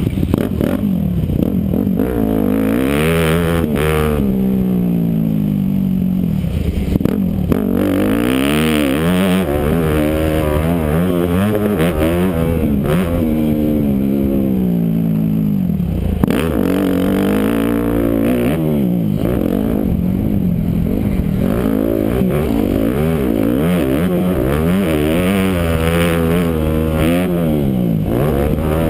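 Yamaha YZ250F four-stroke single-cylinder motocross engine, heard from the rider's helmet, revving hard and climbing in pitch, then dropping back again and again as it is shifted and throttled on and off around the track. There are two short sharp knocks, about seven and sixteen seconds in.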